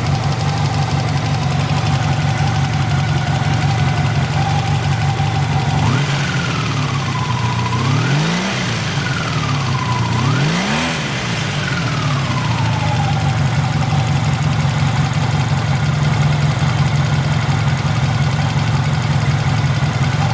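Honda VF750F's V4 engine idling, blipped twice about six and ten seconds in, its pitch rising and falling back to idle each time, with a thin steady whine over the idle. The bike is listed as having an abnormal engine noise.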